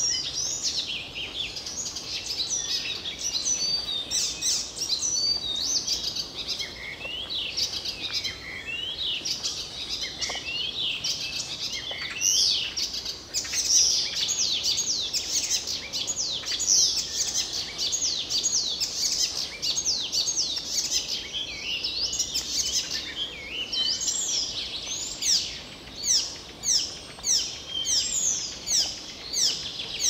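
Many songbirds singing and chirping over one another in a busy chorus of high whistles and trills. Near the end one bird repeats a quick falling note over and over at a steady pace.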